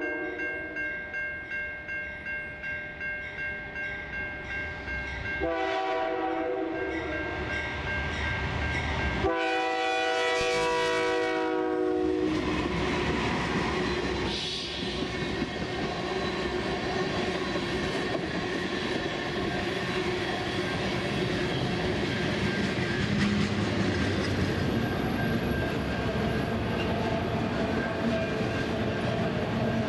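A Canadian National freight train led by an SD70M-2 diesel locomotive sounds its air horn in three long blasts, the chord dropping in pitch at the end of the last one as the locomotives pass, about twelve seconds in. The freight cars then roll by, with a steady din of steel wheels clattering over the rails.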